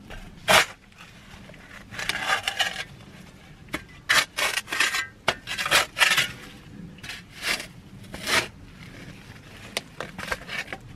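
Shovel blade scraping and scooping dirt and dry leaves in a string of irregular strokes.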